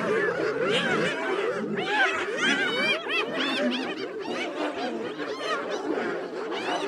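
A group of spotted hyenas giggling and whooping together, many overlapping high, rising-and-falling calls without a break.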